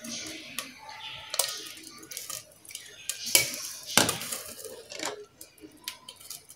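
Kitchen utensils being handled: a spoon and containers clinking and knocking, with several sharp knocks, the loudest about four seconds in.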